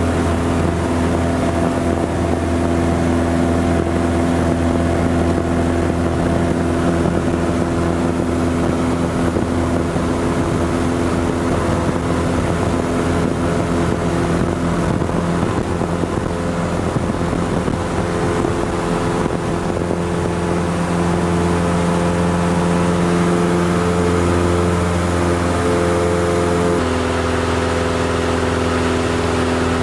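Cessna 172 floatplane's piston engine and propeller running at high power through the takeoff run and climb, heard from inside the cabin. The note stays steady, then steps abruptly to a different pitch near the end.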